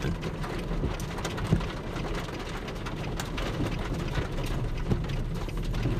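Rain hitting a car's roof and windshield in scattered ticks and patters over a steady low rumble.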